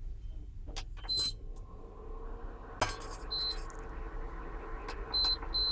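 Bajaj Majesty induction cooktop's touch panel giving several short high beeps as its keys are pressed, and a steel pot set down on the glass top with a sharp clink about three seconds in. After that the cooktop runs with a faint steady hum.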